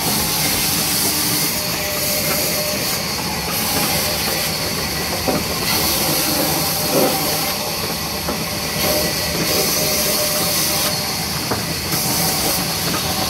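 Sawmill band saw and its belt drive running: a steady mechanical din with a strong hiss that swells and fades every few seconds.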